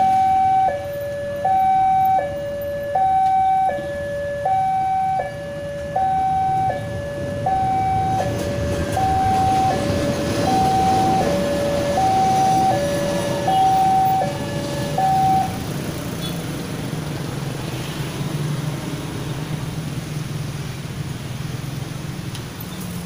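Railway level-crossing warning alarm sounding its electronic two-tone chime, a high and a low tone alternating about every three-quarters of a second, while a passenger train rolls past with a swelling rumble. The alarm stops about two-thirds of the way through, leaving the low hum of motorcycle engines as traffic moves off over the crossing.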